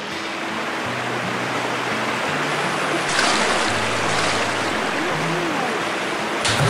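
Rushing river water around a kayak running into a whitewater riffle, growing louder about three seconds in. Background music with steady bass notes plays underneath.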